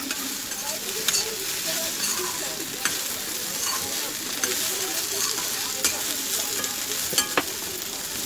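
Sliced okra frying in oil in a metal kadhai, sizzling steadily as a spatula stirs it, with a few scattered clicks of the spatula striking the pan.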